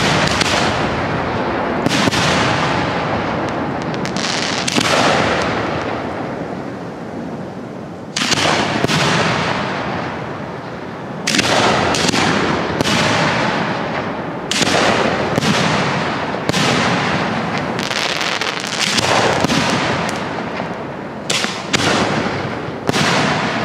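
Aerial firework shells bursting overhead one after another, a sharp bang every second or two, each trailing off in a long rolling rumble.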